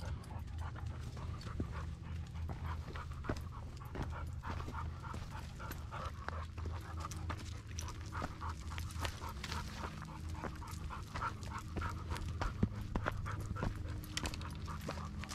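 Vizsla panting rapidly and steadily on a walk, with many small clicks and ticks mixed in.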